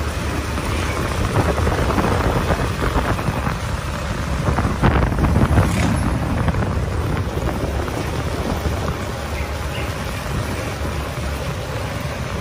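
Motorcycle engine running on the move during a road test ride, with wind noise on the microphone; the engine note swells briefly about five seconds in.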